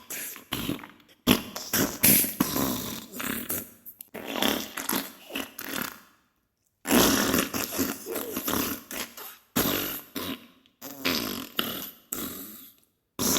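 Diarrhea sound effect: wet, sputtering farts in several long bursts, with short breaks between them.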